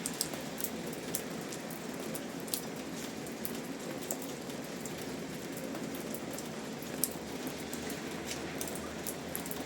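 Steady rain falling, with single drops ticking sharply and irregularly through it, one louder drop about seven seconds in.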